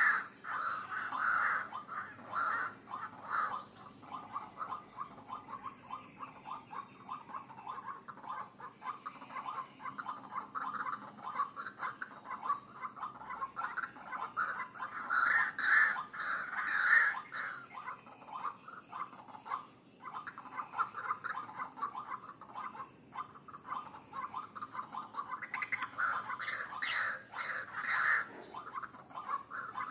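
White-breasted waterhen (ruak-ruak) calling: a continuous run of rapid repeated calls, louder at the start, about halfway through and again near the end.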